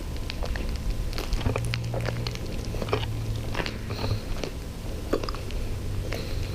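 Footsteps crunching over debris on a hard floor: irregular crunches and clicks, over a low steady hum.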